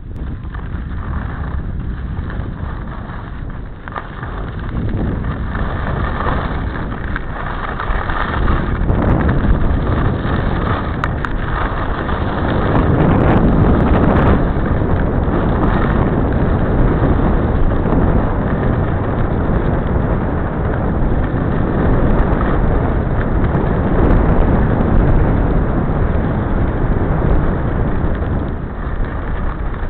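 Wind rushing over the microphone of head-worn camera glasses and skis sliding on snow during a downhill ski run, a steady rushing noise that builds as speed picks up and eases near the end.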